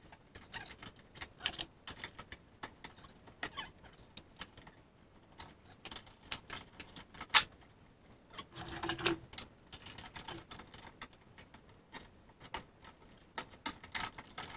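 Irregular metallic clicks and clinks of hand tools and loose metal parts while the bolts holding a window regulator inside a car door are loosened, with one sharp, louder click about seven seconds in.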